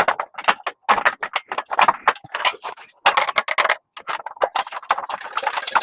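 Rapid, irregular metallic clicking and clinking of 13 mm steel bolts, nuts and washers being handled and fitted loosely onto a fender flare bracket.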